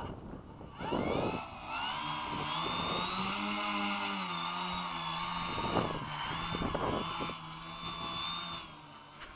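The two propeller engines of a twin-engined Gemini V2 model UAV run up on the ground. They spin up about a second in, hold a steady pitched hum with a high whine over it, and wind back down near the end.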